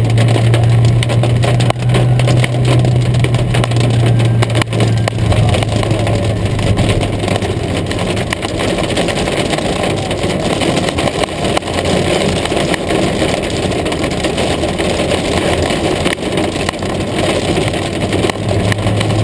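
Hail pelting the roof and windshield of a Mitsubishi Lancer sedan, heard from inside the cabin as a dense, steady clatter of small impacts. The car's low engine drone runs underneath, plainest in the first few seconds and again near the end.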